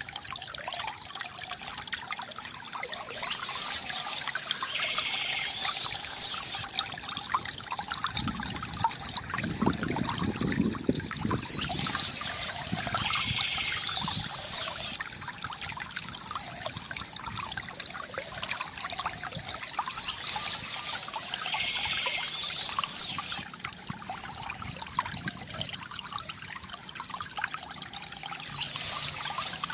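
Small stream trickling and pouring steadily, with a deeper gurgle about nine to twelve seconds in. A higher, brighter patch of sound recurs about every eight seconds.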